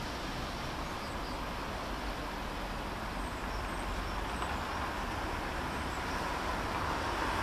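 Steady distant roar and hiss of a Boeing 777-300ER's GE90 jet engines at cruise altitude, growing a little louder near the end.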